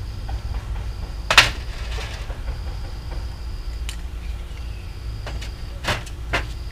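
Small clicks and taps of lawn mower carburetor parts being handled and set down in an aluminium foil tray: a sharp click about a second and a half in, a few lighter ticks, and two more clicks near the end. A steady low hum runs underneath.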